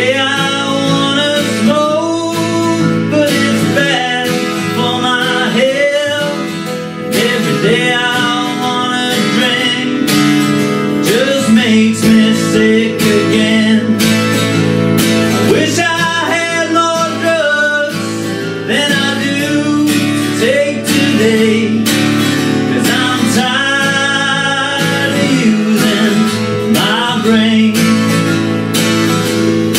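Acoustic guitar strummed steadily in a country-blues song, with a melody line over it that bends in pitch, from singing and a neck-rack harmonica.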